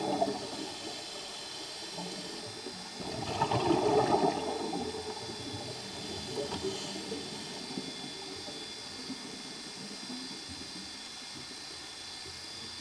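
A scuba diver's exhaled breath bubbling out of the regulator underwater: a bubbly rush that tails off just after the start, and another lasting under two seconds about three seconds in. Between them a faint steady underwater hiss with a few small clicks.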